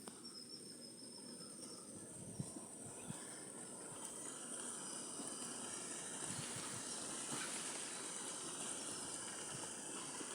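Steady high-pitched insect chorus, with a few faint scattered chirps and small clicks.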